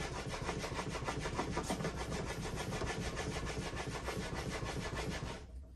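A block plane iron clamped in a honing guide, rubbed in quick back-and-forth strokes across a water-wetted 30-micron sharpening stone: a steady, rhythmic gritty scraping that stops near the end. This is the honing that brings up a shiny surface and a burr on the edge.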